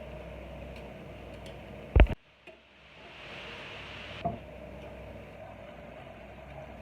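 A sharp knock about two seconds in, then a short hiss of about a second and a second, softer knock, over a steady background hum with faint ticking.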